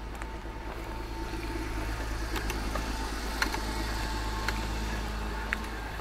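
A car passing on the street: its engine and tyre noise swell over a few seconds and then fade. Sharp clicks of footsteps on pavement sound through it.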